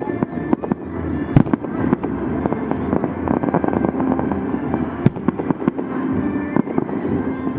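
Fireworks salute: a steady mass of bangs and crackling shell bursts, with sharper loud reports about one and a half seconds in and again about five seconds in.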